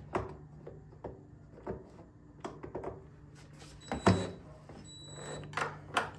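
Hand tools and fasteners worked on a generator's plastic housing: scattered light clicks and taps while nuts are loosened, with one louder knock about four seconds in.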